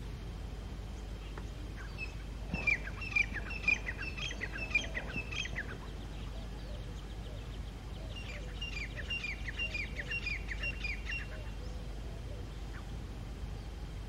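Grey francolin giving loud territorial calls: two bouts of rapid, repeated high notes, each note falling in pitch. The first bout starts about two and a half seconds in and is the louder; the second runs from about eight to eleven seconds in.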